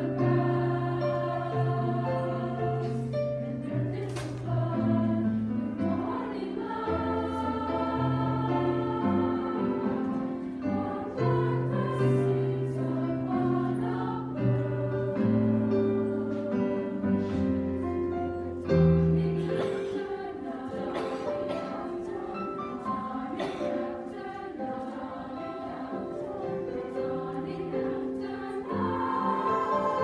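Treble choir singing sustained chords in several parts with piano accompaniment, growing a little softer about two-thirds of the way through.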